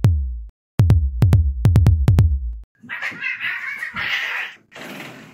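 Drum machine kick drum: deep hits whose pitch drops, a few spaced beats and then a quick run, stopping about two and a half seconds in. Then a cat's hiss for about two seconds, with a shorter burst of hiss near the end.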